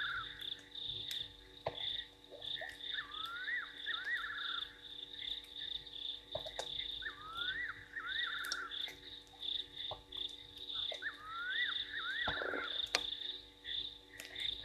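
Night chorus of frogs and insects at a waterhole: a steady pulsing high-pitched chorus, with a call that repeats about every four seconds, twin rising whistles followed by a quick trill.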